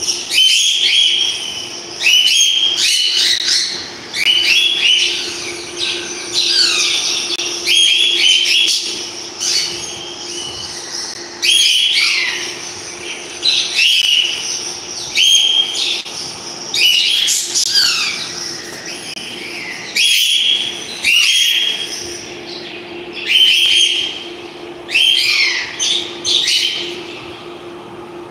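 Pet parrots calling: sharp, shrill chirps and squawks that sweep up and down in pitch, repeated every second or two. A steady low hum runs underneath.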